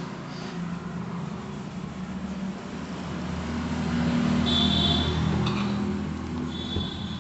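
A motor vehicle's engine passing, a low hum that grows louder to a peak a little past the middle and then fades. A thin high tone is heard at the peak and again near the end.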